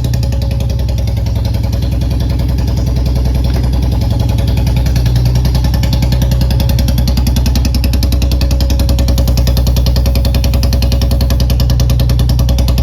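Royal Enfield Bullet's single-cylinder engine running steadily with an even, rapid thump, getting a little louder around the middle.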